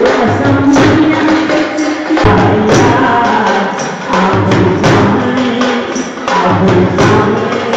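Live Punjabi folk song: a man singing through a PA microphone, accompanied by a dhol drum beating a steady rhythm and bright jingling hand percussion.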